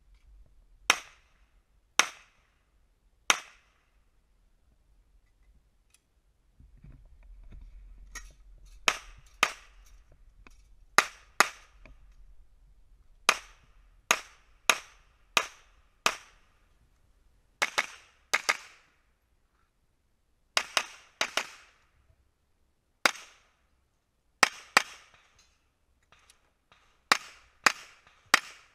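Pistol shots fired in a defensive pistol (IDPA) course of fire: three single shots early, then a long string of mostly paired shots about half a second apart, with short pauses between pairs as the shooter moves from target to target.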